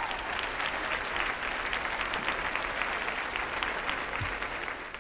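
Large crowd applauding, many hands clapping, fading away near the end.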